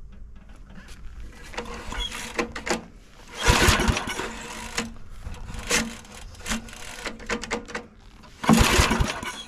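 Recoil starter cord pulled hard twice on a 1965 Rover Ranger's 8 HP engine, about five seconds apart, with smaller rattles of the handle between. Each pull gives a loud rasp as the rope whips out and the engine turns over. It never fires: the ignition gives no spark.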